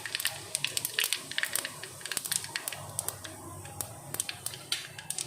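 Mustard seeds spluttering in hot oil for a tempering (thalippu): many sharp, irregular pops and crackles.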